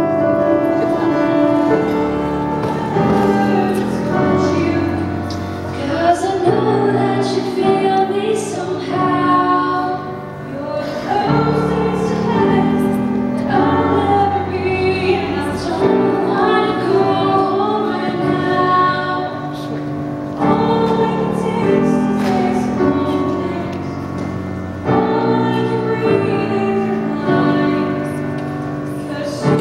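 Female voice singing a slow song with grand piano accompaniment.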